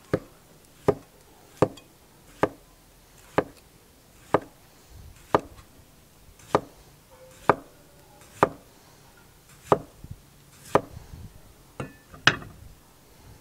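Large chef's knife slicing a potato into thin rounds on a wooden cutting board: a sharp knock of the blade meeting the board about once a second, fourteen or so cuts.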